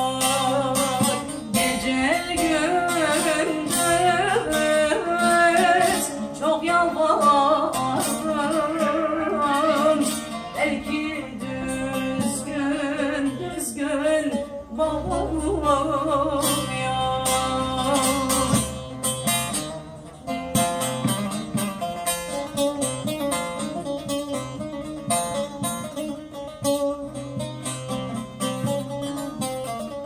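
A woman singing a Turkish folk song in the long, ornamented uzun hava style to a bağlama (long-necked saz) played with a pick. Later on her voice stops and the saz plays on alone.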